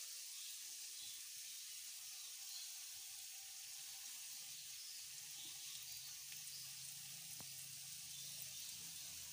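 Jalebi batter frying in hot oil in a pan on a medium-low flame: a steady, gentle sizzle of small bubbles around the spirals. A faint low hum joins about halfway.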